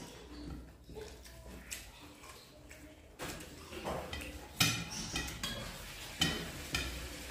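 Hands mixing rice and curry on stainless steel plates, soft eating sounds broken by scattered sharp metallic clinks against the plates, the loudest about four and a half and six seconds in.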